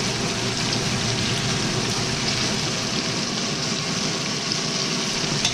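Flour-coated chicken pieces deep-frying in a pan of hot oil: a steady, even sizzle, with one light click near the end.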